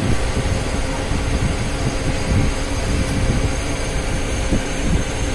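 Steady machinery rumble with a constant hum running through it, with no break or change.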